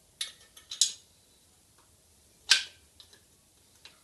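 Sharp metal clicks and clinks as steel parts of a stand's upright and tilt mechanism are handled and fitted together: a quick cluster in the first second, the loudest single clink about two and a half seconds in, and a faint click near the end.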